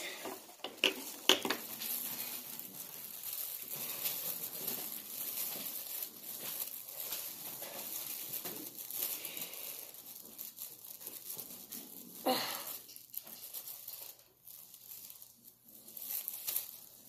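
A bag crinkling and rustling as it is handled and cut, with small clicks throughout. There is a louder rustle about twelve seconds in, and it goes quieter after that.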